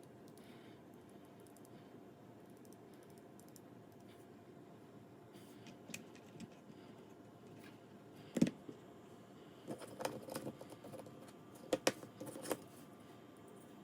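Scattered clicks and clacks from the Keychron K2 HE keyboard: a few isolated taps, then one sharp knock and two short clusters of clicks.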